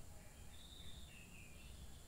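Near silence with two faint, high bird notes, the second a little lower than the first.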